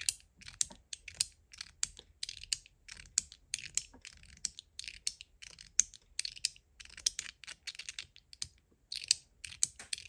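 TopB mechanical fidget with a ZZ plate and Ultem (PEI) bottom being clicked over and over, a sharp click about twice a second.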